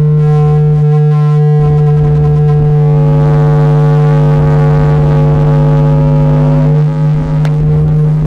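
Loud electronic drone music: a steady low tone held throughout, with higher sustained tones layered over it. A new set of higher tones swells in about three seconds in.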